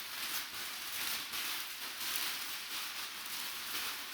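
Steady hiss with faint rustling and handling sounds of packaging.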